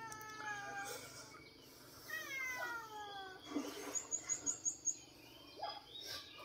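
A rooster crowing twice, each a long drawn-out call falling in pitch. Short light clinks of a spoon stirring in a coffee cup follow near the middle.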